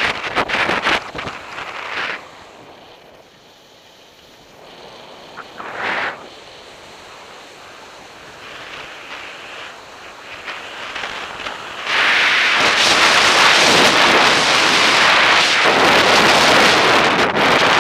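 Wind rushing over a skier's action-camera microphone, with skis hissing and scraping over groomed snow. It surges unevenly at first, drops lower for several seconds, then jumps to a loud steady rush about twelve seconds in.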